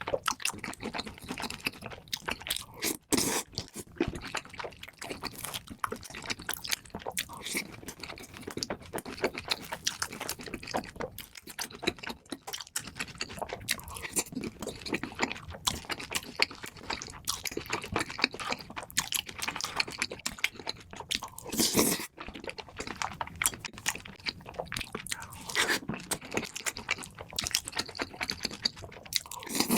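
A person chewing and biting into crunchy food: a steady run of irregular crisp crunches and chewing sounds.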